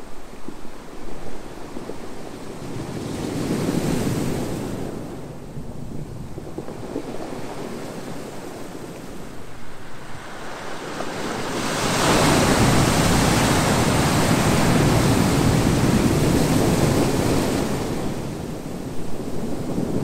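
Ocean waves breaking and washing up the shore: a swell a few seconds in, then a larger, louder wash from about twelve seconds in that eases off near the end.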